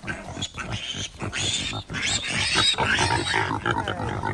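Pigs grunting and squealing, loudest about two to three seconds in.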